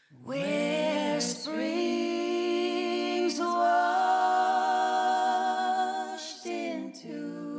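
A woman singing a slow melody in long held notes, phrase after phrase, as background music.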